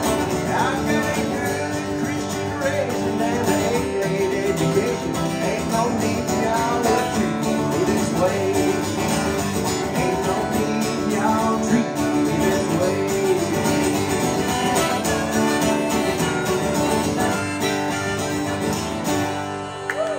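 Steel-string acoustic guitar strummed in a country rhythm, with a wavering rack harmonica melody over it in an instrumental break without words. The song winds down near the end.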